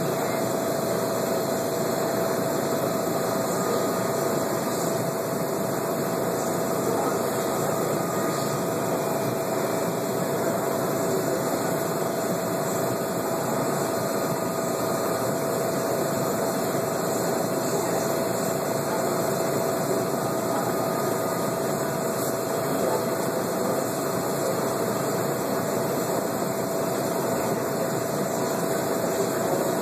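Steady mechanical hum and hiss with one constant mid-pitched tone, unchanging throughout.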